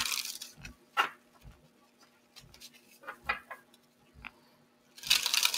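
Deck of oracle cards being shuffled by hand: a short flutter of cards at the start and another about five seconds in, with a sharp click about a second in and a few lighter taps of the cards between.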